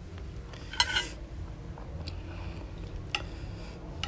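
A metal spoon clinks against a ceramic plate once, sharply, about a second in, then two fainter taps follow, over a low steady hum.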